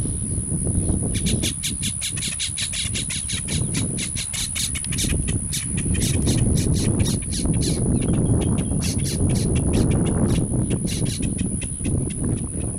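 Boat-tailed grackles calling in rapid runs of short, sharp notes, about six or seven a second, starting about a second in and stopping shortly before the end, with a few brief breaks. A steady low rumble runs underneath.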